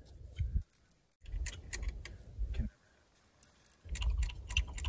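Scattered light metallic clicks and clinks from hands working tools and parts in an engine bay, with bursts of low rumble in between.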